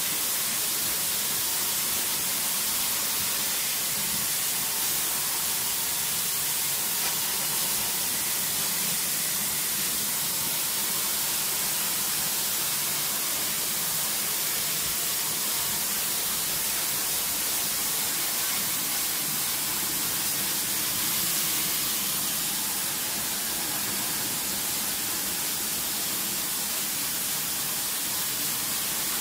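High-pressure water jet hissing steadily as it sprays the coil fins of a split air conditioner's indoor unit during a wash.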